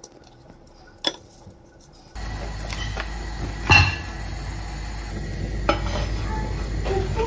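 Pots and utensils clinking and knocking while a crab is cooked. A few light clicks come first, then a steady hiss with a low hum sets in suddenly about two seconds in, and a sharp clink stands out near the middle.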